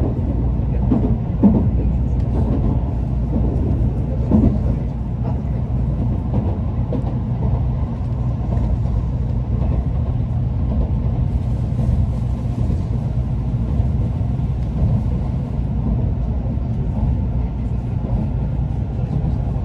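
Running noise of an N700A Shinkansen heard inside the passenger car: a steady low rumble from the bogies and rails, with a few knocks in the first few seconds.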